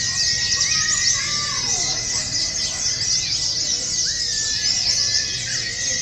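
Many caged white-eyes (pleci) singing at once: a dense, fast, high-pitched twittering of chirps and short sweeps that never pauses, with a few longer whistled notes, over a low murmur of voices.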